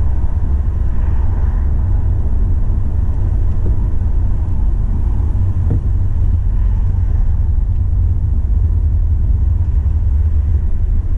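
Car cabin noise while driving: a steady low rumble of engine and road noise. A faint click comes about six seconds in.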